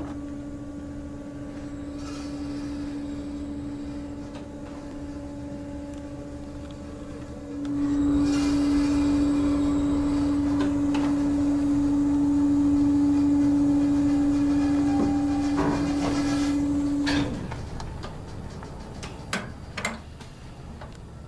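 Robotic fueling system machinery running with a steady hum, which grows much louder about a third of the way in and cuts off near the end, followed by a few sharp clicks and knocks as the fueling head works against the truck's receiver.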